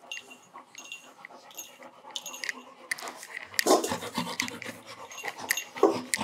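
Labrador retrievers panting, with two louder short bursts about four seconds in and near the end.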